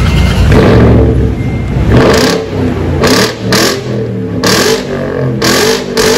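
A Range Rover V8 running through a newly fitted stainless-steel exhaust, very loud. It rumbles heavily for about two seconds, then is revved in quick repeated throttle blips, about two a second.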